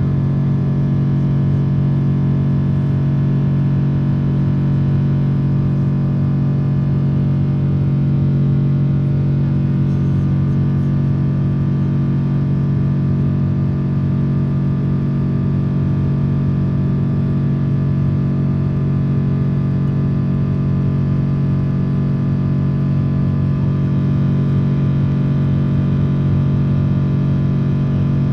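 Boeing 777-300 cabin noise: a steady engine drone with a strong low hum and several higher tones over an even rush of air.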